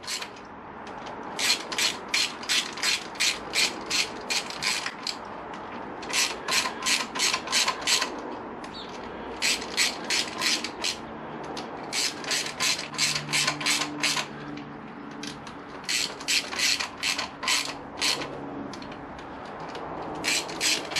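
Hand socket ratchet clicking as small bolts on a Honda VFR800's cylinder head are snugged down in opposite pairs before torquing. Spells of rapid clicks, about four a second, with short pauses between them as he moves from bolt to bolt.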